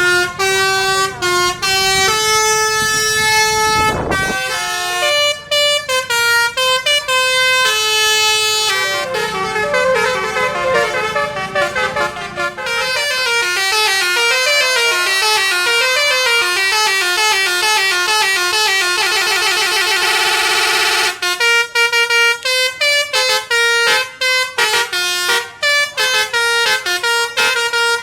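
Basuri multi-tone musical bus horn ('telolet') on a Tunggal Jaya bus playing melodies of quick stepping notes, with a long run of very rapid notes midway. There is a short burst of noise about four seconds in.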